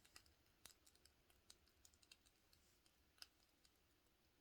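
Near silence with a dozen or so faint, scattered light clicks, the loudest a little past three seconds in.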